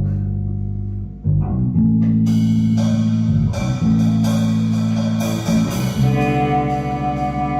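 Electric bass and guitar playing long held notes in a loose rehearsal warm-up, with drum kit hits joining about two seconds in.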